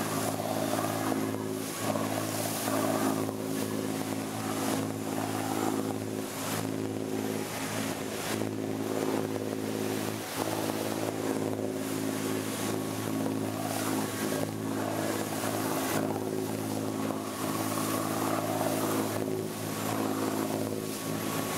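Excursion boat's engine running at a steady cruising drone, over the rushing hiss of the wake churning along the hull.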